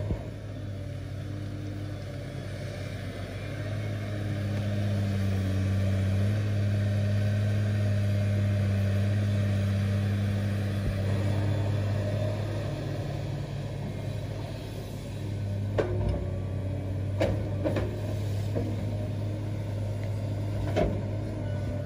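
Komatsu hydraulic excavator's diesel engine running steadily, louder for several seconds as it works under load while digging, then easing back. A few sharp knocks come in the last six seconds.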